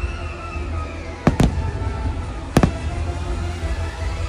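Aerial firework shells bursting with sharp bangs, two in quick succession about a second and a quarter in and another about two and a half seconds in, over a steady low rumble and the show's music.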